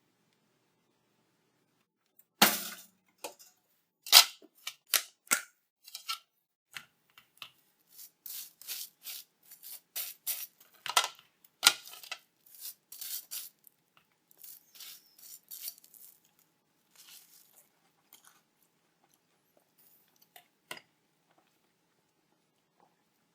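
A sharp clunk about two seconds in, then a long run of short scraping strokes and clicks as a knife spreads butter across dry toast, thinning to a few light ticks near the end.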